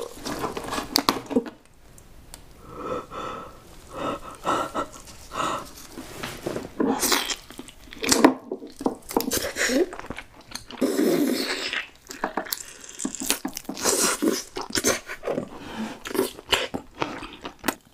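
Eating a boiled lobster: irregular cracks and crackles as the shell and meat are pulled apart, and bites and chewing of the lobster meat. A few short hummed sounds, around the start and about halfway through.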